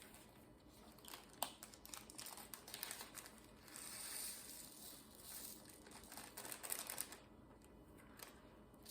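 Faint crinkling and rustling of small plastic bags of diamond painting drills being handled, with scattered light clicks.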